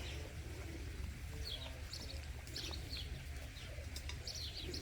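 Faint bird chirps: short, quickly falling notes, scattered about one a second, over a steady low rumble.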